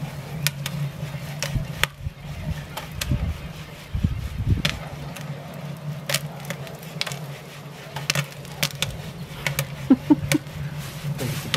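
Popcorn kernels beginning to pop in a Jiffy Pop foil pan held over a wood fire: sharp, sporadic pops at irregular intervals.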